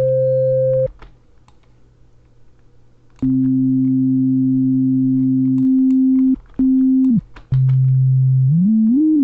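Pure sine test tone from a DAW tone generator, switched on and off and retuned. A short higher tone sounds first. A lower tone starts about three seconds in and cuts out twice, then drops lower and glides up in pitch near the end. Faint clicks sound in the gaps.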